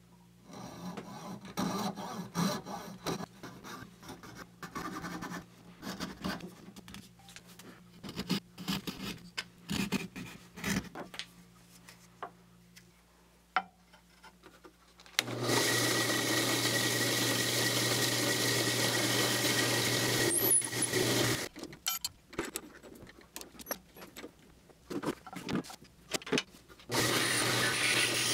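A coping saw cutting across the end of a turned wooden handle in quick, uneven strokes for the first dozen seconds. Then a drill press runs steadily for about six seconds while boring a hole into the end of the handle, followed by a few knocks and a second short run near the end.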